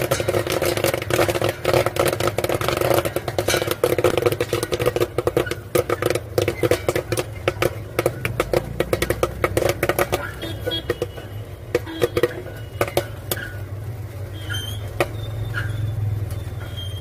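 Corn kernels popping inside a popcorn machine's stirred kettle, at first a dense rapid crackle of pops, thinning to scattered single pops after about ten seconds as the batch nears its end. A low steady hum runs underneath.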